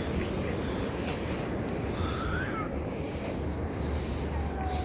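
Wind buffeting the microphone: a steady rough rumble that grows heavier near the end, with a faint short rising chirp about two seconds in.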